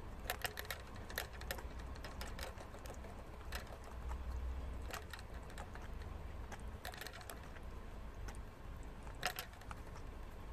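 Prairie dog drinking from the metal sipper nozzle of a cage water bottle: irregular clicking in short clusters as it licks and works the nozzle.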